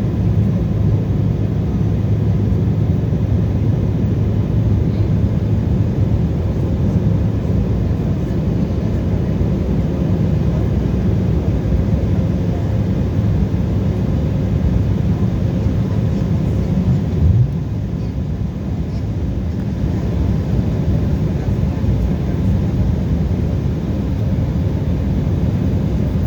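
Airliner engines and airflow heard from inside the passenger cabin during the takeoff climb: a steady, low-pitched noise. There is a brief thump about seventeen seconds in, after which the noise is slightly quieter.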